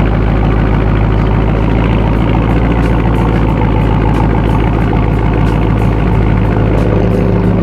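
Dodge Charger Scat Pack's 6.4-litre 392 HEMI V8 idling steadily through its exhaust, with the mid mufflers deleted and the resonators kept.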